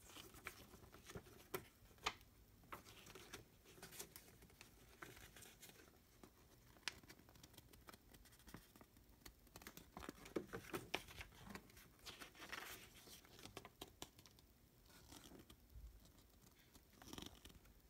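Faint paper rustling and soft taps as the pages of a plastic model kit's instruction booklet are turned and handled, with scattered small clicks.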